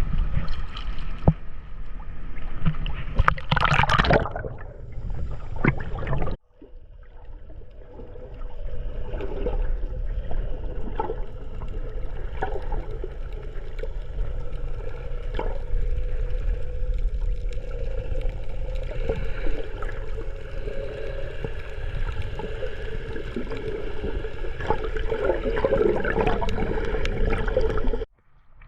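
Water gurgling and sloshing with scattered clicks and a faint steady hum. It breaks off abruptly about six seconds in, then comes back and runs on until it cuts off again near the end.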